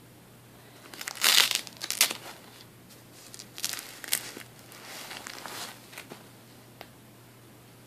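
Tissue paper crinkling in several short bursts as it is lifted and handled, loudest about a second in.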